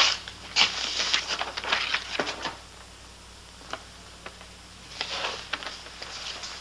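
Sheets of paper rustling and crackling as a stack of papers is leafed through, in two spells: a longer one at first and a shorter one about five seconds in, with only a few light ticks between.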